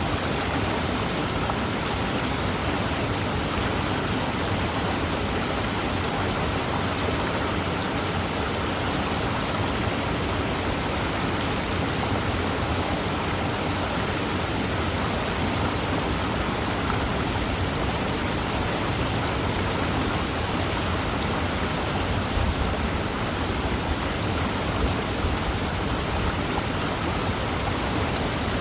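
Fast-moving river: water rushing in a steady, unbroken hiss.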